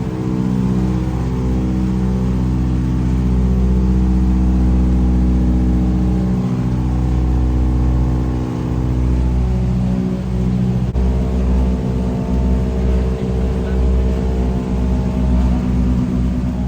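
Vintage propeller airplane's piston engine running steadily at high power, heard from inside the cabin. It makes a deep, loud hum of several layered tones that shift slightly in pitch a few times.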